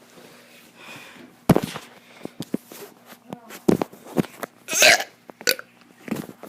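A kid burping: about five short, sudden burps in a row, the one about three-quarters through a little longer than the rest.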